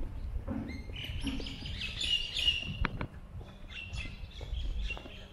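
Small birds chirping in short bursts, loudest from about one to three seconds in and again near the end, over a low rumble.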